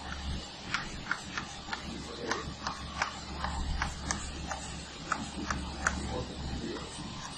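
Chalk tapping and scratching on a blackboard as numbers are written, an irregular run of quick sharp clicks, over a steady low hum.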